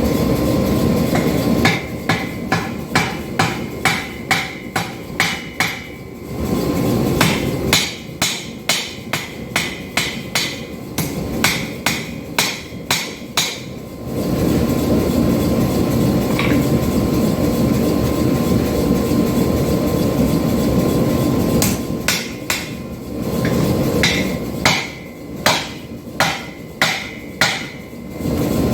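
Hand hammer striking hot 5160 steel on an anvil to shape a knife handle: three runs of sharp, ringing blows at about two a second. Between the runs there are stretches of a steady rushing noise.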